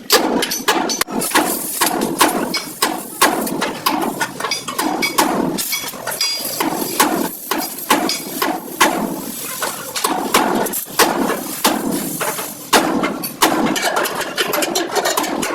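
Hammer blows on the sheet-metal body panels of a Suzuki Bolan van being beaten out during dent repair: many sharp strikes in quick, irregular succession.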